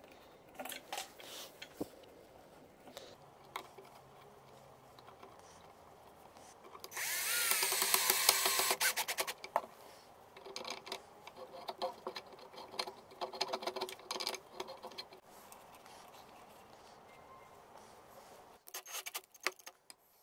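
A small power drill-driver runs in one loud burst of about two seconds, its pitch sagging and rising as it drives a screw into wood. Light clicks and rattles of small metal parts and screws being handled come before and after it.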